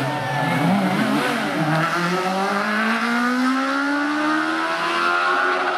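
Peugeot 206 rally car's engine under hard driving: the revs waver through a corner, then rise steadily for about four seconds as it accelerates away up the hill.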